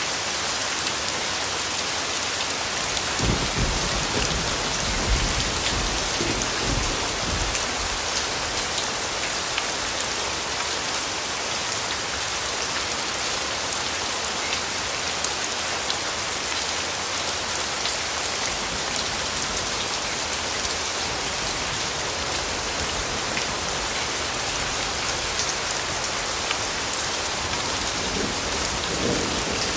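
Steady, heavy rain falling on a surface, an even hiss with scattered drop ticks. Low thunder rumbles about three seconds in, lasting several seconds, and again near the end.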